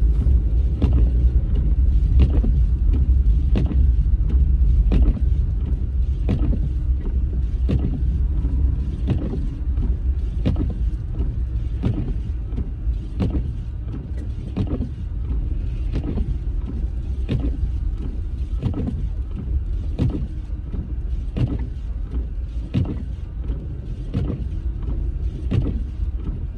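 Car windshield wipers sweeping snow off the windshield, knocking at every stroke in a regular rhythm of about three knocks every two seconds, over the steady low rumble of the car driving, heard from inside the cabin.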